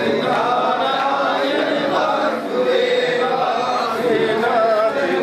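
A group of voices chanting together, a devotional chant with several voices wavering around the same melody, dipping briefly about halfway through.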